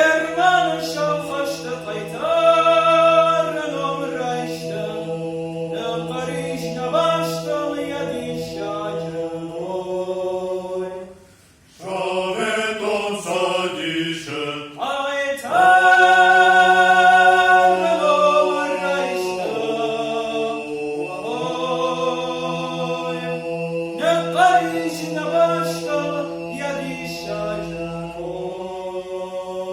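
An Ossetian folk ensemble sings a traditional heroic song: a lead voice carries the melody over a steady held drone from the other voices. There is a brief break about eleven seconds in.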